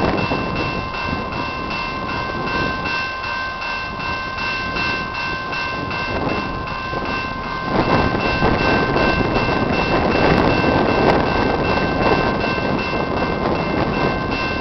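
Railroad grade-crossing bell ringing steadily in quick, even strokes, over the diesel engine rumble of two approaching CN locomotives, which grows louder about eight seconds in.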